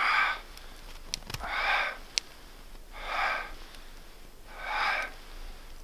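A man's rhythmic, forceful breathing, four breaths about one and a half seconds apart, timed to his warm-up movements in the cold.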